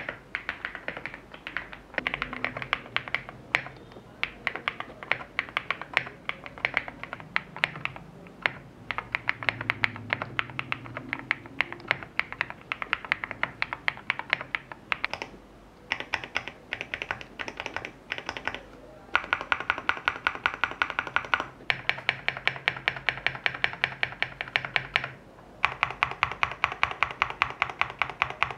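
Fast typing on a FINALKEY V81 Plus custom mechanical keyboard (CNC aluminium case, polycarbonate plate, lubed switches): a dense, steady stream of key clicks with a few brief pauses, turning into very even rapid runs of keystrokes in the last third.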